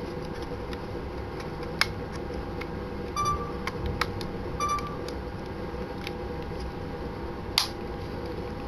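Sony HDR-CX405 camcorder being handled: sharp plastic clicks of its parts and buttons, and two short electronic beeps from the camcorder about three and four and a half seconds in.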